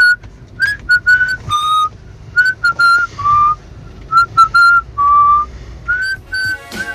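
A person whistling a short repeating tune: groups of about three quick high notes, each followed by a longer, lower note.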